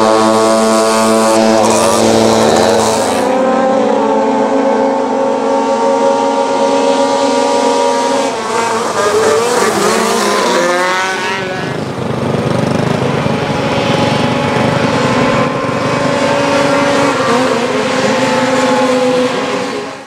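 Several vintage racing snowmobiles' two-stroke engines running hard at high revs, their pitch rising and falling as the sleds accelerate, back off and pass, with the sharpest swoops about two seconds in and again around nine to eleven seconds.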